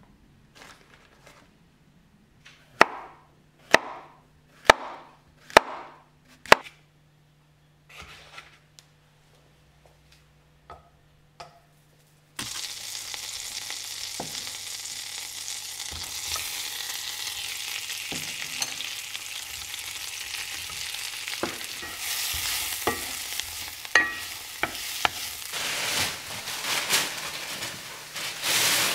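A kitchen knife cutting chestnut mushrooms on a wooden chopping board: five sharp knocks about a second apart, then a few fainter ones. About twelve seconds in, butter sizzling in a cast-iron skillet with mushrooms frying in it, with a few light knocks, the sizzle growing louder near the end.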